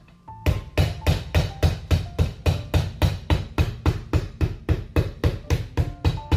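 Cobbler's hammer tapping the heel of a leather dress shoe held upside down on a last: a fast, even run of sharp blows, about four or five a second, beginning about half a second in.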